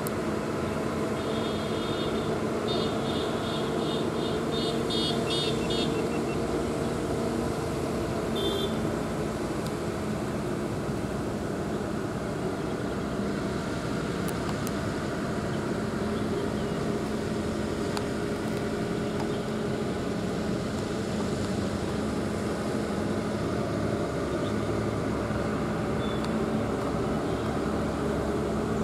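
Heavy goods truck's diesel engine running at low speed, a steady low drone, with other road traffic passing. For a few seconds near the start there is a rapid series of high-pitched pips.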